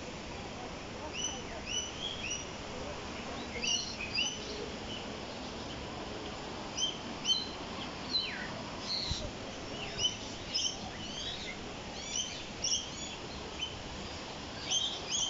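Several small birds chirping and calling in an aviary, with short high chirps coming in quick clusters over a steady background hiss.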